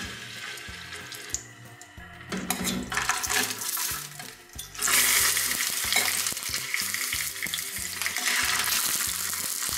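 Raw chicken pieces sizzling as they are laid into hot vegetable oil in a stainless steel pot to sear. The frying gets louder about five seconds in as more pieces go in.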